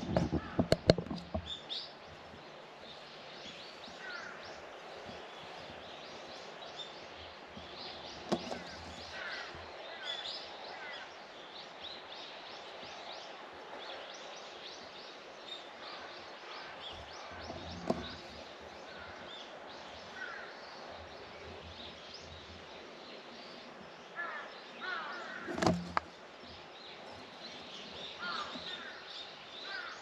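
Outdoor garden ambience: birds calling and chirping on and off over a steady background hiss. A few sharp knocks cut through it, a cluster in the first second or two and another shortly before the end, with single ones in between.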